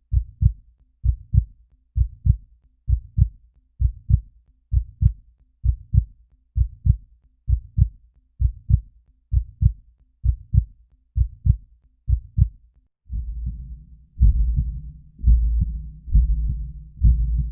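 Human heartbeat sound effect: a steady lub-dub at about 65 beats a minute. About 13 seconds in it changes to a louder, muffled, whooshing beat about once a second.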